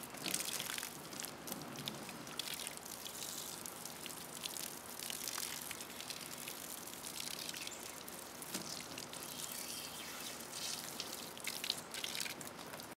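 Water from a garden hose spraying and splashing, a steady hiss with irregular drips and small splashes.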